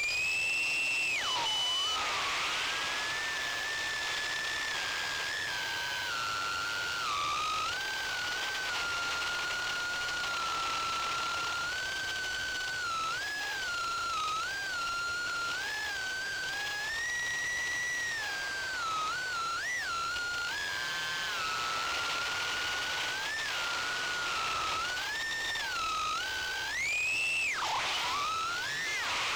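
A 2-inch FPV quadcopter's Gemfan 1105 7500KV brushless motors and 2036 four-blade propellers whining in flight. The pitch rises and falls with the throttle: a sharp climb and quick drop about a second in and again near the end, with smaller wobbles in between.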